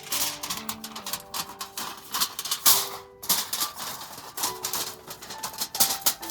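Background music, a simple melody of short held notes, with dense irregular clicking and tapping over it.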